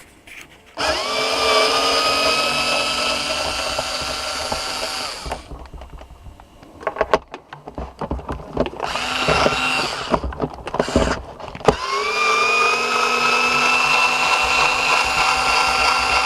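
Electric drill-driver spinning up with a brief rising whine and running steadily for about four seconds, then clicks and knocks of parts being handled with a short burst of the tool, then running steadily again: screws being driven out to open the vacuum cleaner's housing.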